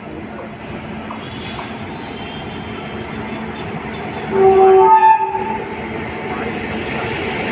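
Rumble of a passing Indian Railways train, growing louder toward the end, with one loud locomotive horn blast about a second long, starting about four and a half seconds in.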